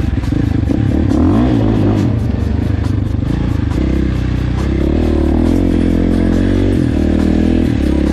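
KTM dirt bike engine running while riding, revving up and down in the first couple of seconds, then holding a steadier, slightly higher note from about five seconds in.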